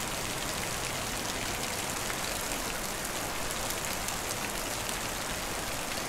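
Fast river water rushing over rapids: a steady hiss of white water with fine splashing throughout.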